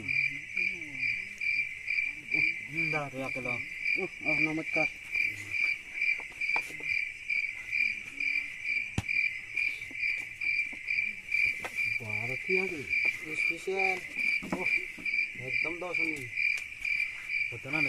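Cricket chirping steadily, a high-pitched chirp repeating about three times a second.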